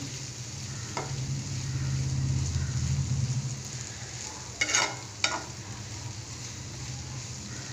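Diced elephant foot yam sizzling in oil in a pan while a spatula stirs it, with a few sharp clicks of the spatula on the pan about a second in and again near five seconds. A low hum sits under the first three seconds.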